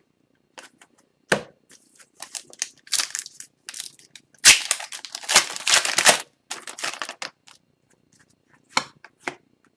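Foil wrapper of an Upper Deck Extended Series retail hockey card pack being torn open and crinkled, with cards flicked and handled. The loudest, densest tearing and crinkling comes about four and a half to six seconds in.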